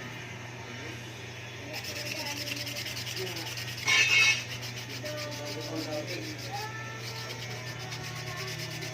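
Sanding on a carbon fiber honeycomb part: a fast, scratchy rubbing that starts about two seconds in, with one brief louder scrape near the middle. A steady low hum runs underneath.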